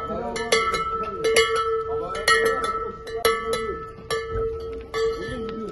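Large bells on a wrestling camel's decorated saddle gear clanking in time with its walk, struck in pairs about once a second with a ring that carries on between strikes.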